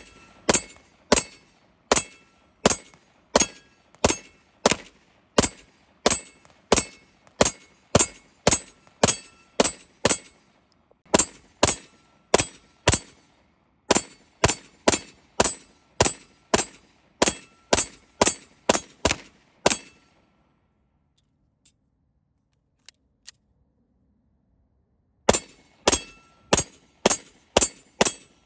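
Beretta M9A4 9mm pistol fired in steady slow fire, about three shots every two seconds, with brief breaks. Two-thirds of the way through the firing stops for about five seconds, with a few faint clicks, then the shots resume.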